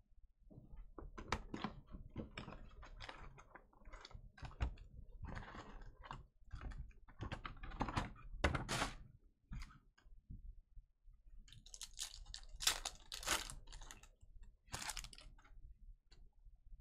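Optic basketball card packs being torn open, the foil wrapper crinkling, and the cards being flicked and shuffled in hand: a string of small clicks and crackles, with louder crinkling near the end.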